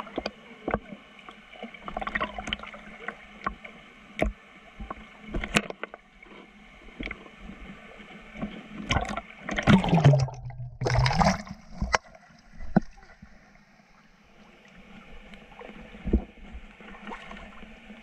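River water splashing and sloshing right at the microphone of a waterproof action camera held at the surface, with many sharp splashes. About nine and a half seconds in, the camera goes under the water, and for about two seconds the sound becomes a loud, muffled underwater gurgle.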